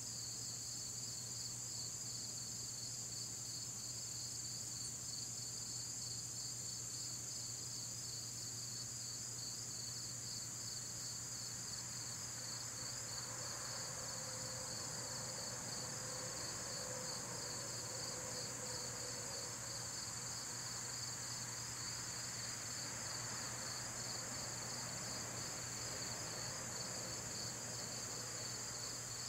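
Chorus of crickets and other insects trilling steadily, a fast pulsing chirr under a continuous high buzz, with a faint low hum beneath. A faint distant drone comes and goes in the middle.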